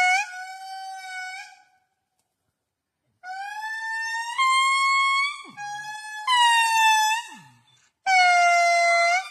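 Lemurs giving long, wailing calls, each note held steady in pitch and then jumping to another, in several phrases with a silent gap of about a second and a half early on. The loudest calls come at the start and near the end.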